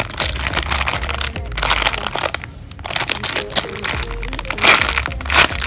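Crinkling and crackling of plastic packaging handled by hand around a squishy toy, with the loudest crinkling at about a second and a half and again near the end.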